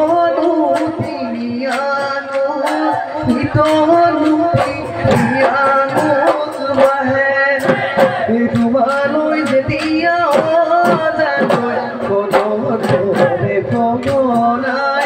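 Live Bihu music: a male voice singing a Bihu song over a fast, steady beat from several dhol barrel drums struck with stick and hand.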